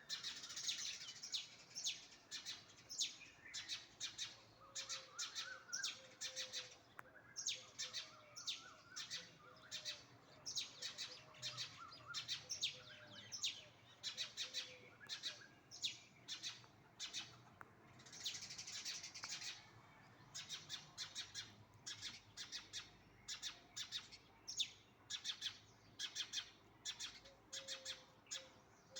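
Small birds chirping: an unbroken run of short, high chirps, several a second, with a few fainter lower notes in among them.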